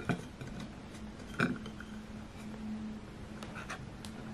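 Thin peel-back lid of a sardine tin being pulled off by its ring tab: two sharp creaking tears of the metal about a second and a half apart, then a few faint clicks near the end.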